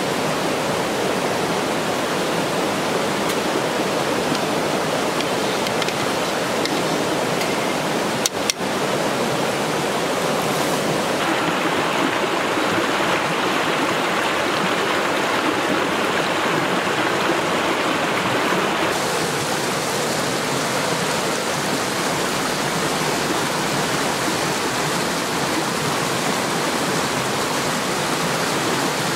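Woodland stream rushing and splashing over rocks in a steady, loud wash of water noise that shifts slightly in tone a couple of times. A short sharp click breaks it briefly about eight seconds in.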